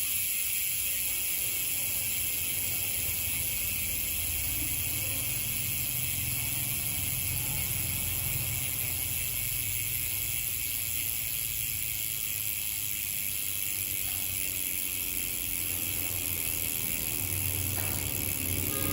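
Bicycle rear hub freewheeling, its ratchet pawls clicking so fast that they blend into a steady high buzz.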